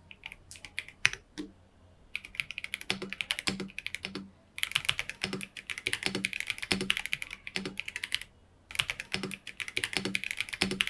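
Typing on a Feker IK65 65% mechanical keyboard with Feker White Marble linear switches. A few separate keystrokes are followed by three runs of fast typing, with short pauses between them.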